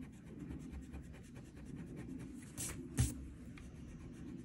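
Pink Pearl rubber eraser scrubbing back and forth across drawing paper, erasing a pencil line, in quick scratchy strokes. A soft knock about three seconds in is the loudest sound.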